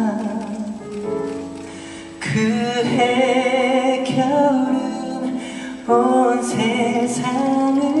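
A man singing a slow ballad in Korean live, held notes with vibrato, accompanied by an orchestra.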